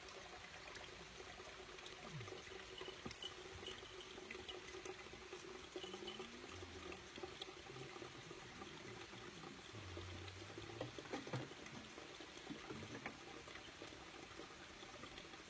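Faint, steady trickling and pouring of water from a watering can sprinkled onto planter boxes of soil and plants as simulated rain.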